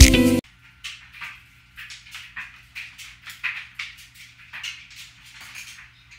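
Rapid, irregular short high chirps, several a second, over a faint steady low hum. The intro music cuts off in the first half second.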